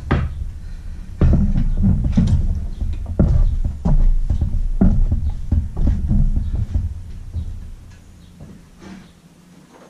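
Irregular dull thumps and knocks, as of a person stepping and shifting about beside an engine stand. They fade away over the last few seconds.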